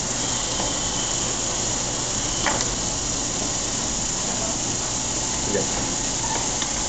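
Steady, even hiss with a faint high whine in the first couple of seconds and a single click about two and a half seconds in.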